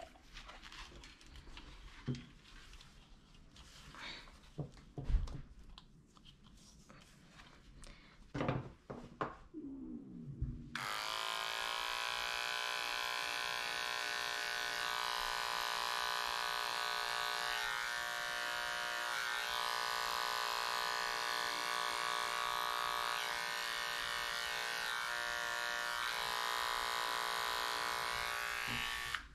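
A few scattered knocks and handling sounds. Then, about ten seconds in, a cordless pet clipper switches on and runs steadily with an even buzzing whine, wavering slightly as it cuts the fur on a cat's paw. It stops just before the end.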